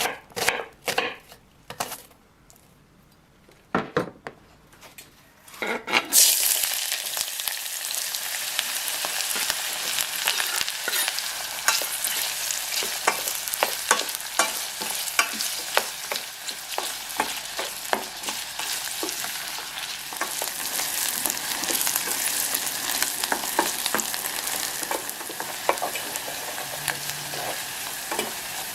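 Knife chopping on a cutting board for about two seconds, a few taps, then about six seconds in, food goes into hot oil and sizzles steadily while being stirred, with a utensil clicking against the pan.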